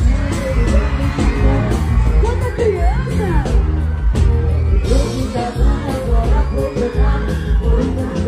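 Live sertanejo band music played loud through a concert PA, with a heavy drum and bass beat and singing, over a crowd yelling and cheering.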